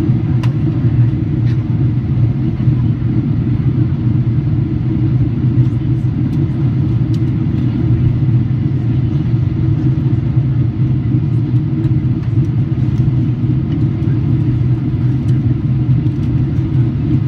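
Steady low rumble inside the cabin of a Boeing 777 airliner in flight: engine and airflow noise.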